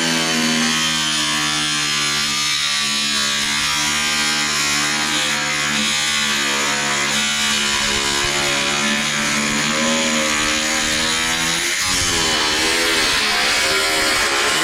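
Handheld power cutting tool running continuously as it cuts through the old door-skin sheet metal, a steady motor whine over a harsh hiss. The pitch sags and wavers under load, most clearly about twelve seconds in.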